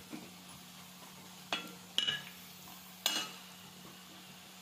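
Steel spoon stirring chopped onions and spices frying in oil in a kadhai, with a faint sizzle. The spoon clinks against the pan three times.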